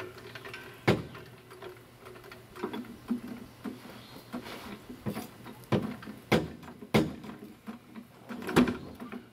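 Sharp metal knocks and clanks, about half a dozen with several in quick succession past the middle and the loudest near the end, from a bare engine block and transmission being shifted on a floor jack in a car's engine bay.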